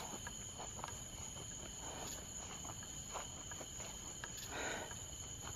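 Crickets chirring in a steady, high-pitched night chorus, with faint footsteps in grass.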